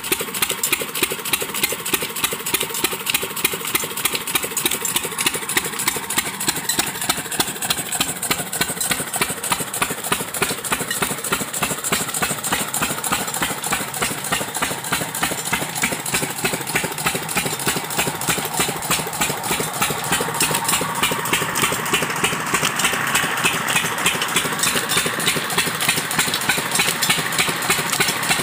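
Lister-type single-cylinder stationary diesel engine running steadily under its governor, with an even, regular exhaust beat, while belt-driving a well water pump.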